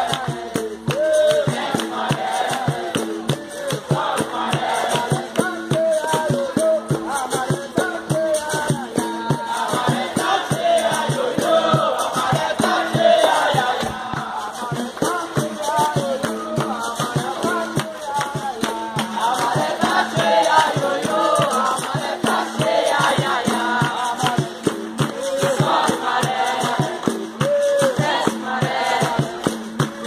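Capoeira roda music: the circle sings a chant in chorus over a steady rhythm of percussion and hand-clapping, with a shaker-like rattle in it.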